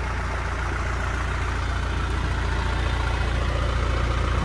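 1996 Isuzu Elf fire truck's engine idling steadily, a low even hum that grows slightly louder.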